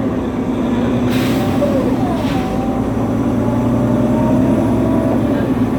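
Nova Bus LFS city bus engine droning steadily, heard from inside the passenger cabin while the bus runs. Two brief hisses come about one and two seconds in.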